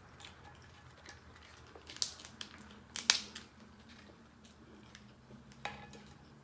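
Dungeness crab shell being cracked apart: a few sharp cracks and snaps, the loudest about three seconds in.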